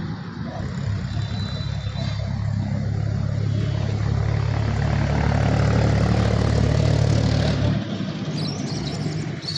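A motor vehicle's engine running close by, with a steady low hum. It grows louder over several seconds, then drops away suddenly about three-quarters of the way through. A few high chirps follow near the end.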